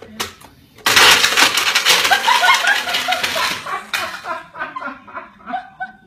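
Blender starts abruptly about a second in and runs loudly for about three seconds, grinding frozen fruit with no liquid through an uncovered lid, then cuts out. Short high yelps and squeals from people come over the end of the blending and after it.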